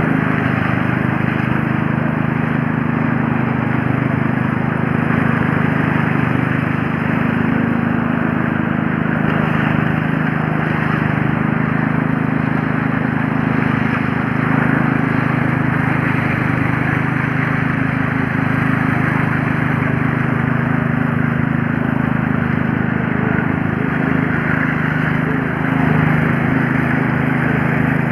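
Power trowel's engine running steadily at constant speed, a continuous motor hum with a rough, noisy edge, as the machine floats a concrete slab.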